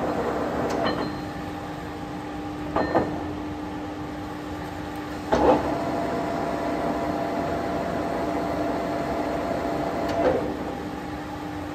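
Tarnow TUJ50M centre lathe running with its spindle turning, a steady hum and whine from the headstock gearing. Four sharp clunks, about one, three, five and ten seconds in, are the speed levers being shifted, and the gear whine changes pitch after each.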